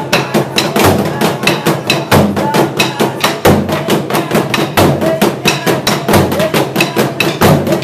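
Burundian ingoma drums, tall wooden drums with pegged hide heads, beaten with wooden sticks in a fast, steady, interlocking rhythm of many strokes a second, with heavier accented beats about twice a second.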